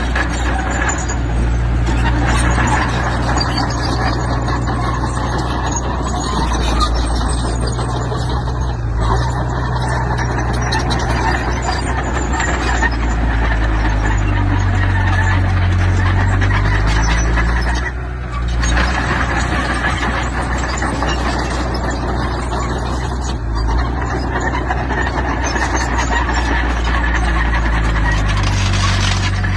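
Heavy construction machinery working: diesel engines running steadily under load, with metallic squealing and clanking.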